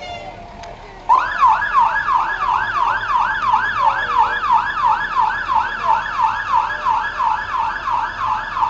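Fire truck siren sounding a rapid yelp, sweeping up and down about three to four times a second, which starts suddenly about a second in.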